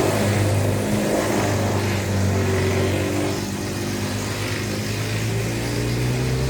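SKARPER X28i four motion wood chipper's engine running hard. Its note dips a little through the middle and picks back up near the end.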